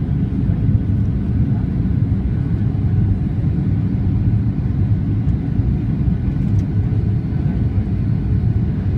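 Steady low rumble of engine and airflow noise heard inside the cabin of a Boeing 737-800 on its landing approach, from a window seat beside the CFM56-7B engine.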